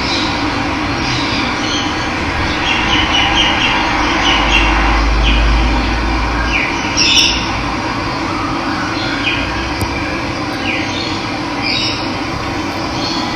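Steady rush of running water with birds chirping over it: short, falling calls that come again and again. A low rumble rises under it for about two seconds midway.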